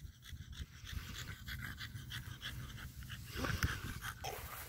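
Small dog panting in quick, even breaths after running, with a few louder scuffs about three and a half seconds in.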